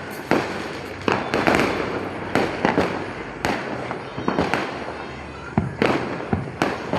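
Diwali fireworks and firecrackers going off: a dense, irregular run of sharp bangs and pops, often several a second, overlapping one another.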